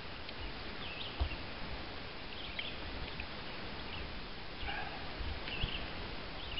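Birds chirping on and off over a steady outdoor hiss, with a few low bumps near the microphone.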